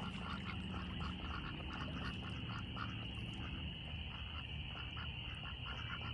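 Frogs calling at a pond: a steady high-pitched chorus, with short calls repeating a few times a second.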